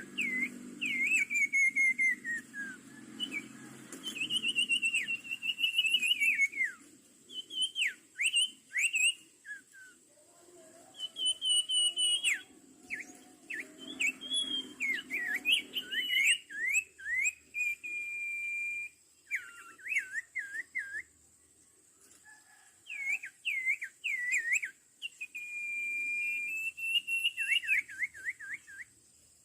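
Sirtu songbird calling: quick series of sharp downslurred whistles, broken by a couple of long held whistled notes, used in luring the bird to a trap. A steady high-pitched insect drone runs underneath.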